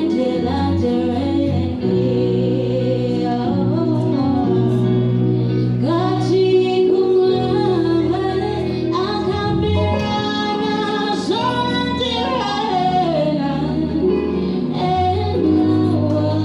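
Gospel music with a woman singing over sustained instrumental accompaniment.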